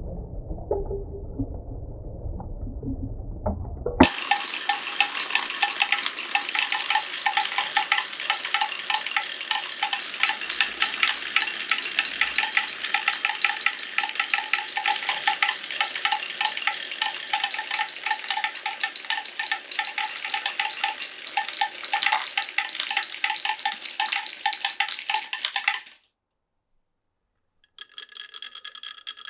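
Glass marbles rolling down a wooden marble run: a low rolling rumble, then suddenly a dense, rapid clatter of many marbles with a ringing note, which cuts off abruptly. Near the end, a bright, sustained ringing tone starts.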